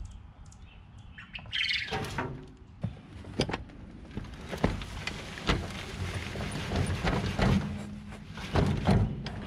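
A bird call falling in pitch about two seconds in. Then compost is dumped from a tipped wheelbarrow into a raised bed, the soil sliding and thudding out of the tub with several sharp knocks.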